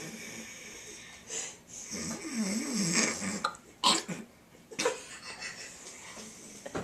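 A young boy making imitation snoring noises with his voice: a run of uneven snores, one with a wavering pitch about two seconds in, followed by short sharp bursts near the middle.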